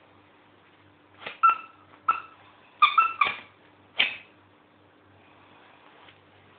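Jack Russell terrier giving a quick string of about seven short, high-pitched barks during play with a ball, starting about a second in and stopping after about four seconds.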